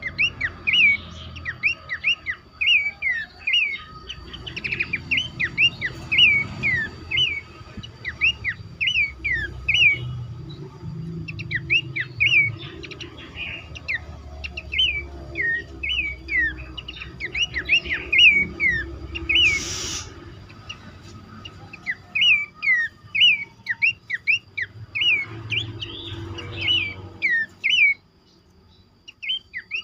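Several pelanduk semak babblers calling together in a chorus: a dense, continuous run of short, sharp chirps, several a second and overlapping, with a faint steady thin tone behind them and a brief hiss about two-thirds of the way through.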